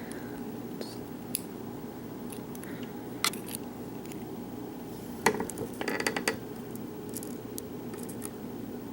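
A few sharp, light metallic clicks and clinks as small brass lock pins and springs are taken out of a pin-tumbler lock and set down, several of them close together about five to six seconds in, over a faint steady hum.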